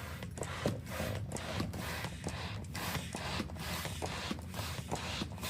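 A rubber balloon being inflated around a stapler inside it, giving irregular rubbing and scraping sounds as the stretched latex moves against the stapler and the hands.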